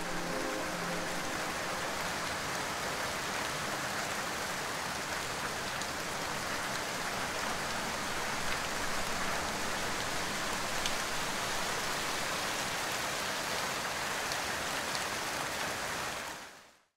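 Steady rain falling, with a few faint drop ticks, fading out just before the end. The last notes of background music die away about a second in.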